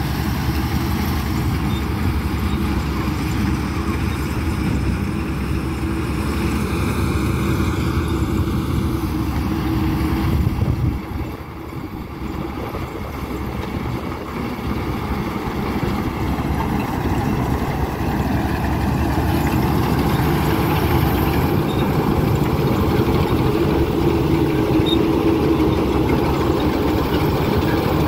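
Changfa CF866 combine harvester running as it harvests, its engine and threshing machinery making a steady, dense drone. The sound dips briefly a little before the middle, then grows louder toward the end as the machine comes closer.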